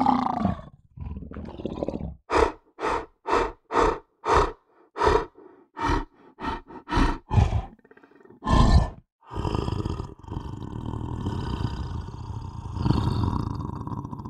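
Lion roaring: a roar tails off at the start, then comes a run of about a dozen short grunting roars, roughly two a second. After them comes one longer, louder roar and a long steady call lasting the last five seconds.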